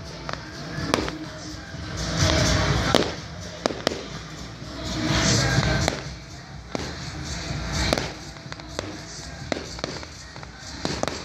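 Firework display: aerial shells bursting with many sharp bangs and crackles, with two louder swells of noise about two and five seconds in.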